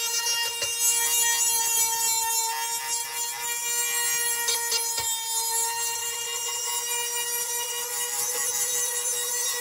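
Handheld electric rotary tool running at a steady high speed and grinding rust off a metal bus tailgate panel: a constant whine with many overtones over a scraping hiss, with one sharp tick about halfway through.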